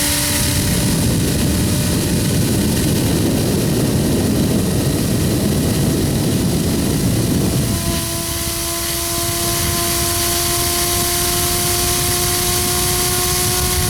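3D-printed compressed-air turbine spinning up, with loud rushing air from a leaky hose connection. About eight seconds in the rushing eases and the turbine's steady whine stands out, slowly rising in pitch as it picks up speed.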